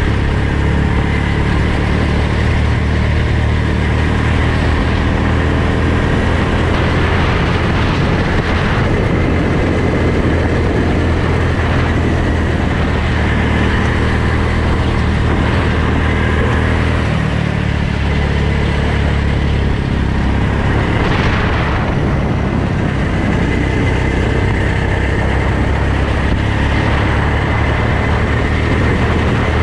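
Go-kart engine running hard, heard from the driver's seat, its pitch shifting a few times as the kart slows and speeds up around the track.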